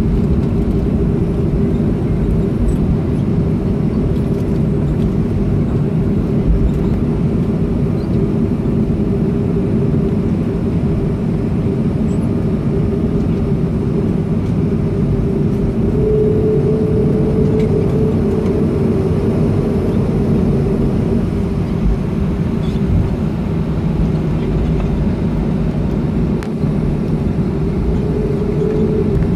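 Steady low rumble inside the cabin of a Boeing 737-300 taxiing after landing, from its engines at idle and the rolling of the aircraft. A slightly higher hum rises above it briefly, once about halfway through and once near the end.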